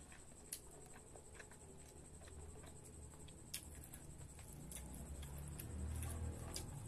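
Faint eating sounds as rice is mixed by hand on a plate and chewed: scattered soft clicks and smacks at irregular intervals over a low rustle that grows louder in the last couple of seconds.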